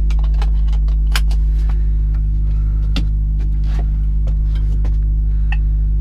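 Volvo FH 460 truck's diesel engine idling, a steady low hum, with scattered sharp clicks and clinks of the seatbelt being pulled across and buckled.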